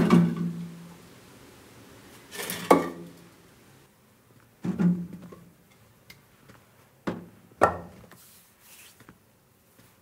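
Firewood logs tossed one at a time into a metal wheelbarrow. Each lands with a wooden thud that rings briefly, about every two to two and a half seconds, the first the loudest.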